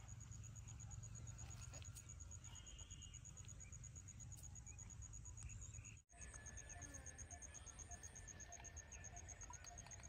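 Near silence: faint outdoor ambience with a low rumble and a steady, high, rapidly pulsing chirp. The sound drops out for an instant about six seconds in.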